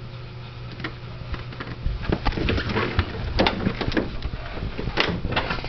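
A run of short knocks, bumps and clattering handling noise, thickest in the second half, over a steady low hum.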